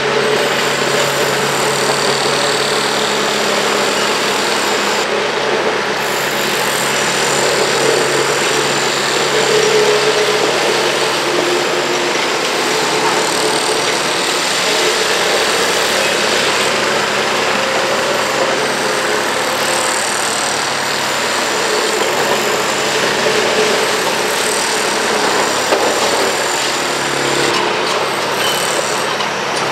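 Komatsu PC210LC hydraulic crawler excavator's diesel engine running steadily under load as the machine digs and dumps gravel.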